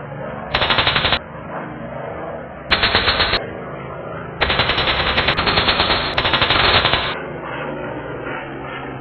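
Machine-gun fire from WWII fighter planes: two short rapid bursts about half a second and three seconds in, then a long burst from about four and a half to seven seconds, over the steady drone of propeller aircraft engines.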